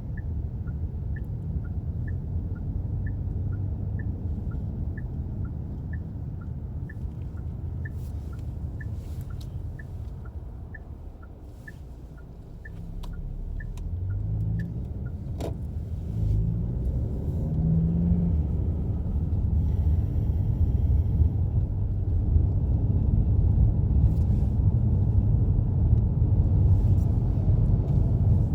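Car cabin noise: the turn-signal indicator ticks steadily over the low engine and road rumble, then stops about halfway through. After that the rumble grows louder as the car picks up speed.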